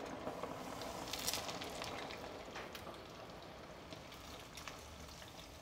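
Panko-breaded chicken thighs deep-frying in a pot of hot oil: a steady sizzle with scattered crackles and pops, easing slightly over the few seconds.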